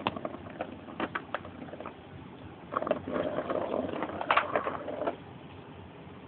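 Cat clawing and pawing at the scratch pad in the middle of a plastic ring toy: irregular scratches and taps, with a denser run of scratching from about three to five seconds in.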